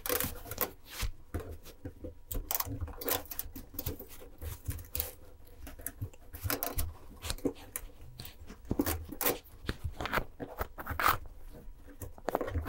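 Thin 1.2 mm craft wire being wound by hand around a thicker wire frame: irregular small clicks, ticks and scrapes of metal wire on metal.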